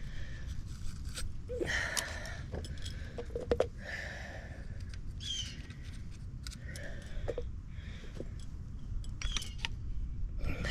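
Hands working copper pipe fittings and tools: scattered metallic clinks and a few short scrapes, over a low steady hum.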